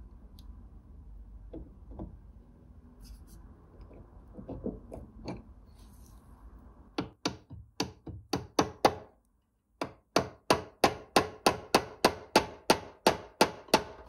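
Light metal-on-metal tapping: pliers knocking a spline key into a Big Red safe lock's drive cam and spindle, tying the drive cam to the spindle. First comes some faint handling. About seven seconds in, a run of sharp taps starts, then a brief break, then a steadier run of about three taps a second.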